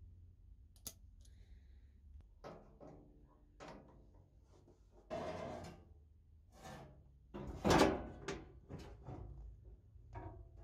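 Steel return spring, threaded rod and cast-iron stand parts of a Morso mitre guillotine knocking and clattering as they are handled and fitted: a run of separate metal clunks and short rattles, the loudest clunk about eight seconds in.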